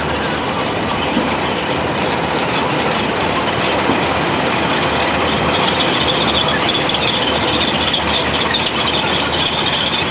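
Column of tracked armoured vehicles driving past, their engines running and their steel tracks squealing. The high squeal grows louder from about halfway through as a vehicle comes close.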